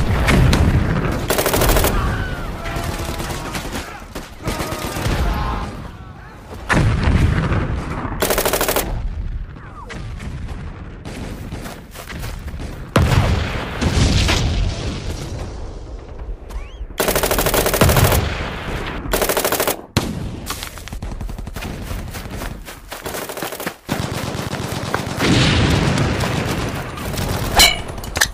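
Battle sound effects of gunfire: single rifle shots and repeated bursts of rapid machine-gun fire, with several of the loudest bursts through the middle.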